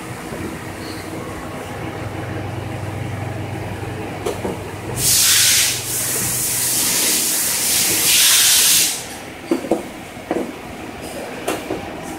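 Conveyor belt of an industrial inkjet coding line running with a steady low hum, broken by two loud hisses of about a second each, about three seconds apart, and a few light knocks.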